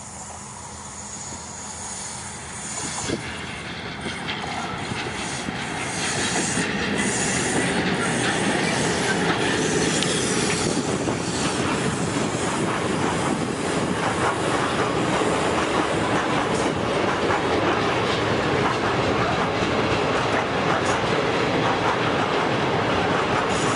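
Freight train hauled by a PKP ET22 electric locomotive approaching and passing, growing louder over the first six seconds, then a long line of open freight wagons rolling past with steady wheel rumble, clickety-clack over the rail joints and some wheel squeal on the curve.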